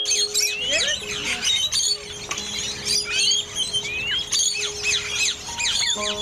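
Chorus of many birds chirping and calling at once, a dense run of short overlapping rising and falling whistles, over a faint steady low hum.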